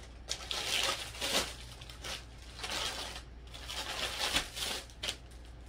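Packaging rustling and crinkling in uneven spells as a cardboard box and wrapped items are handled and pulled out during an unboxing.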